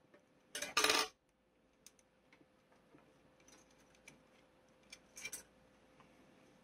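Small plastic clicks and light handling noise as fingers work a bulb and its wires into the plastic saucer frame of a model kit. A louder, brief rustle comes about half a second in, and a quick double click a little after five seconds in.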